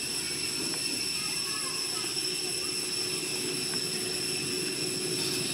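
Steady, high-pitched forest insect chorus, a continuous buzzing drone that does not change, over a low, even background hum, with a few faint short chirps.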